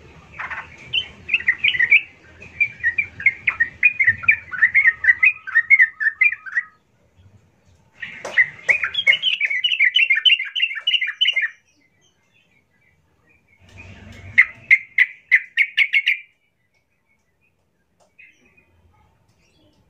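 Yellow-vented bulbul singing: three bouts of rapid runs of short notes, the first about six seconds long, the others shorter, with brief silent gaps between.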